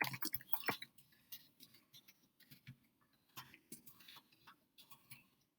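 Faint, irregular clicking of computer keyboard keys as someone types steadily, the keystrokes coming thickest in the first second.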